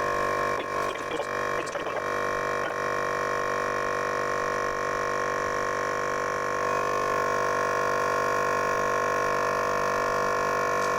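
VIAIR 450P-RVS portable 12-volt air compressor running with a steady, pitched hum while it inflates a truck tire. A few light clicks come in the first couple of seconds. The hum shifts slightly and grows a little louder about two-thirds of the way in.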